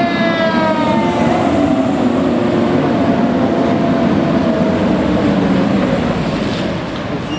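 An emergency vehicle's siren slides down in pitch and fades within the first second or two. Under it, a heavy vehicle rumbles steadily and eases off near the end.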